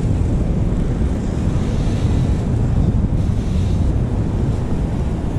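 Wind buffeting the microphone in a loud, low, uneven rumble, with ocean surf washing in behind it.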